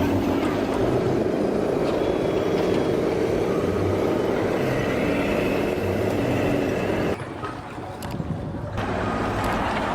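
A heavy vehicle's engine running steadily, with a low rumble. The sound drops away briefly about seven seconds in, then returns.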